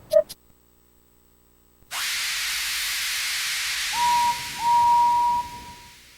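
Steam locomotive sound effect: a sudden loud hiss of escaping steam that slowly dies away, then two toots on a single-note whistle, the second longer.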